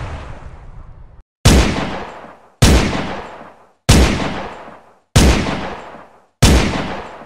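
Glock 17 9 mm pistol firing single shots, five in all, about one and a quarter seconds apart, each a sharp bang with a ringing tail that dies away over about a second. The tail of an earlier shot cuts off abruptly about a second in.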